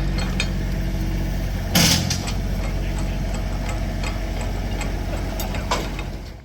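An engine idling steadily, with one loud sharp clank about two seconds in and a few lighter clicks near the end.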